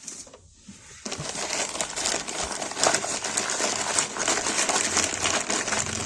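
Parcel packaging crinkling and rustling as it is opened by hand, starting about a second in.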